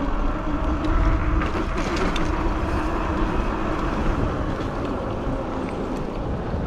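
Wind rumbling on the microphone as a fat-tire e-bike rolls along the road, with a faint steady hum and a few light ticks.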